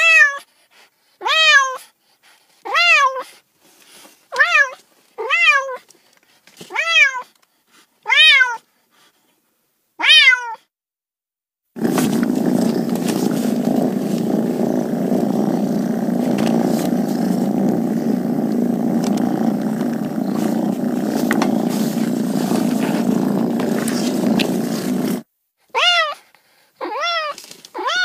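A cat meowing over and over, about eight rising-and-falling meows roughly one and a half seconds apart. Then a steady low rushing noise for about thirteen seconds, and near the end a few quicker, higher-pitched kitten meows.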